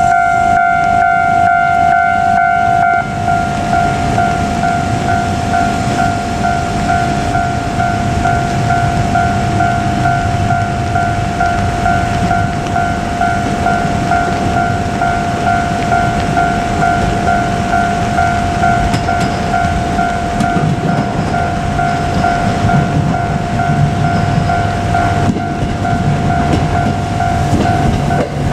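Japanese railway level-crossing warning bell ringing, a two-note electronic ding that breaks into rapid repeats about three seconds in. Under it a JR Kyushu KiHa 200 diesel railcar's engine and wheels rumble, growing heavier in the second half.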